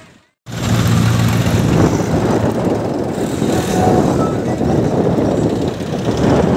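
After a moment's silence, farm tractors' diesel engines running steadily as a column of tractors drives along a road, with a low engine hum.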